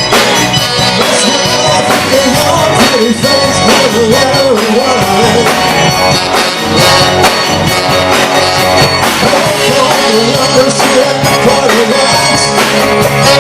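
Live rock band playing an instrumental passage with drums, electric guitars and bass under a wavering lead melody line.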